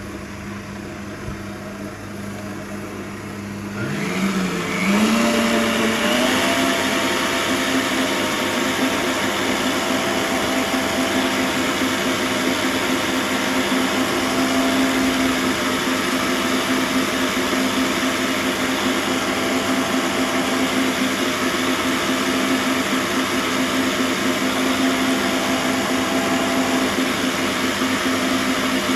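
Stand mixer whipping eggs with its wire whisk. About four seconds in the speed is turned up: the motor's whine rises in pitch and gets louder, then runs steadily at high speed.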